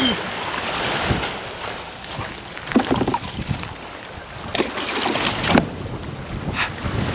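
Wind buffeting the microphone over open water, with a few brief indistinct sounds about three and five seconds in.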